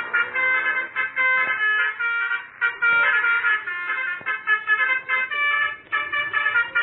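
Telolet basuri multi-tone horn on a motorcycle playing a tune: several horn notes sounding together as chords that change quickly, with short breaks between phrases.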